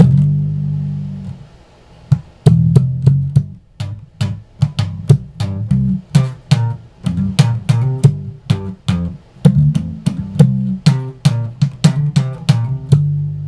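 Squier Affinity Precision Bass played slap style with its tone knob fully rolled off. A held note dies away, and after a short pause about two seconds in comes a fast run of thumb slaps and popped strings over low notes.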